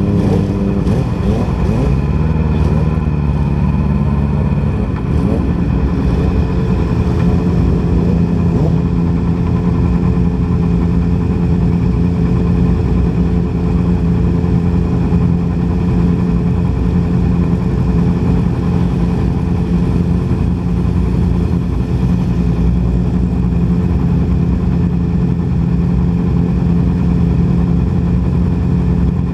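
2010 Yamaha R6 inline-four engine running, its note shifting in pitch over the first few seconds and then holding at a steady speed. The engine is firing on only three cylinders: cylinder four is dead from bent valves.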